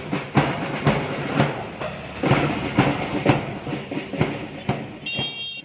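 Marching band drums beating a steady march rhythm, about two beats a second, with a large bass drum, growing fainter toward the end.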